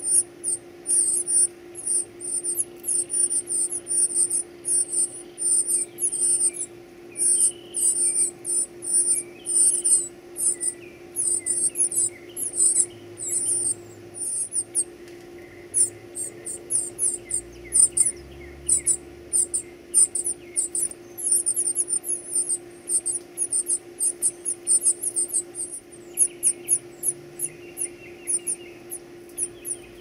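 Northern cardinal nestlings begging for food: rapid, very high, thin squeaking calls, several a second, almost without a break.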